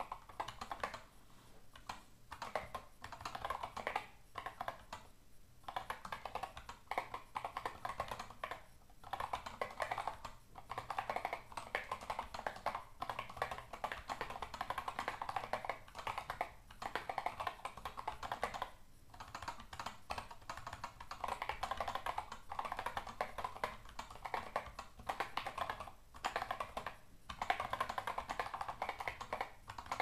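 Typing on the Lagrange, a 3D-printed split mechanical keyboard: fast runs of key clicks broken by short pauses every couple of seconds.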